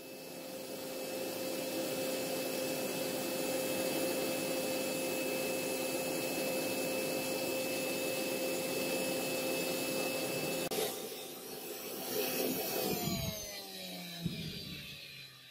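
Homemade gas forge burner running with a steady rushing hiss and a steady whistle. Near the end the whistle stops and the sound breaks up into falling tones as flame spills out of the forge mouth, the burner being turned down.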